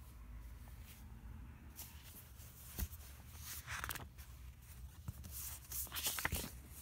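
Pages of a paper journal being flipped and handled: irregular rustling swishes of paper, with a few light taps, the strongest about three seconds in and again near the end.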